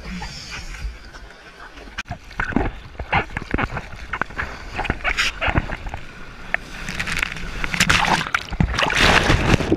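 Seawater splashing and sloshing right against a GoPro camera at the water surface in breaking shorebreak, with a string of sharp splashes from about two seconds in. It builds to a louder, continuous rush of churning whitewater over the camera near the end.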